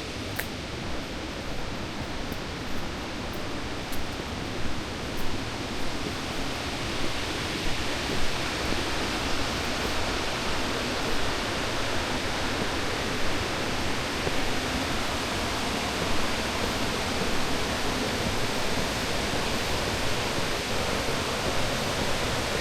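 Steady rushing water, an even noise that grows somewhat louder about six seconds in.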